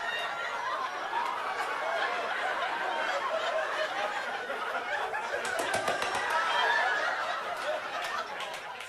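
A comedy-club audience laughing together, with a few claps about halfway through and again near the end.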